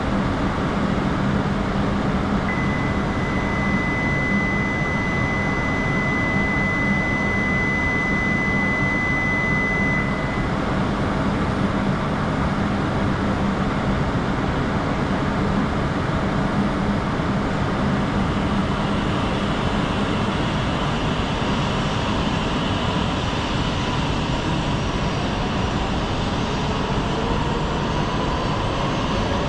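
Shinkansen train noise: a steady, loud rush of wind and rail roar. A steady high tone sounds for several seconds early on, and faint rising tones come in near the end.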